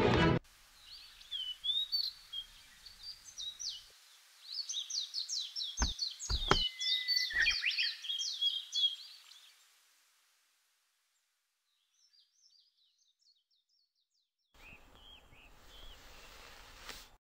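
Small birds singing, with a quick run of chirps in the middle, and a few sharp knocks about six to seven seconds in. Then near silence, and a faint hiss near the end.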